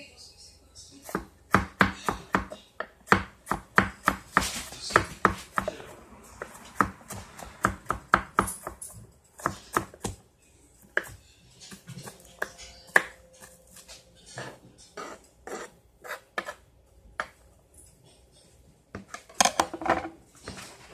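Knife chopping on a cutting board: quick, irregular strokes, dense at first and thinning out after about ten seconds, with a short flurry near the end.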